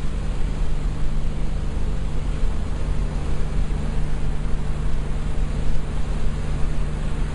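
Vehicle engine idling steadily: a low, even hum under a constant hiss.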